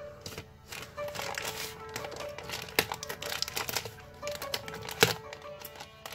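Red plastic courier mailer crinkling and rustling as it is cut open with scissors, with two sharp snips, the second and louder one about two seconds after the first, over background music.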